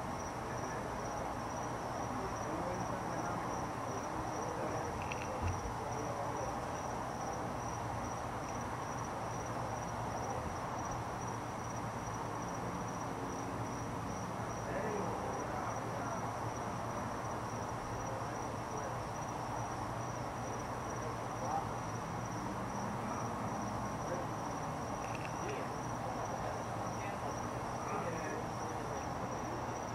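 Crickets trilling: one high, evenly pulsing note that never stops, over a steady low background rumble.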